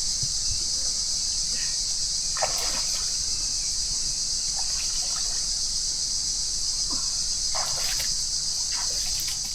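Creek water trickling over a stone crossing, with a couple of splashes from feet wading through the shallow water, about two and a half seconds in and again near the end, over a steady high insect drone.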